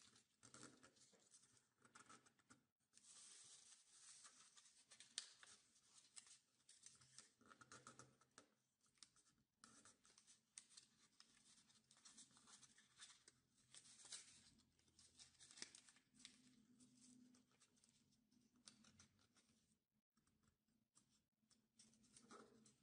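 Faint rustling and crinkling of origami paper being folded and creased by hand.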